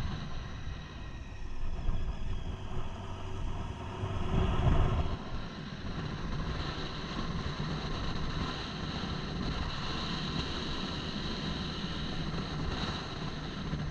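Motorcycle engine running on the move, with wind rushing over the helmet-mounted microphone. A louder low rumble comes about four to five seconds in.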